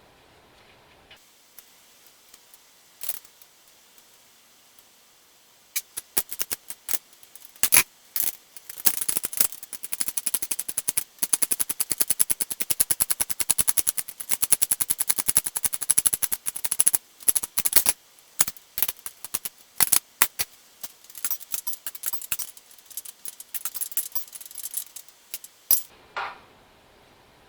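Hand ratchet wrench clicking in fast runs for about twenty seconds as the bolts holding the hydrostatic transmission's oil reservoir bracket are driven in. The clicking starts after a few quiet seconds and stops shortly before the end.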